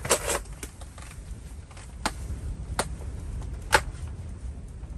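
Plastic tackle box and lures being handled: a handful of sharp clicks and rattles, the loudest a little before the end, over a steady low rumble.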